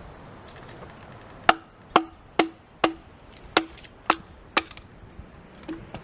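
A large survival knife being driven into wood: seven sharp wooden knocks, about two a second, starting about one and a half seconds in.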